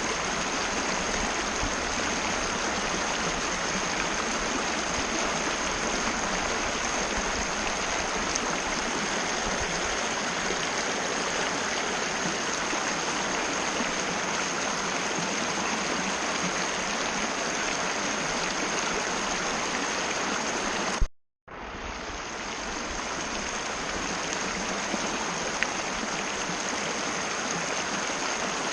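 Mountain river running: a steady, even rush of flowing water, with a thin steady high tone above it. About two-thirds of the way through it cuts off with a click to silence for a moment, then fades back in.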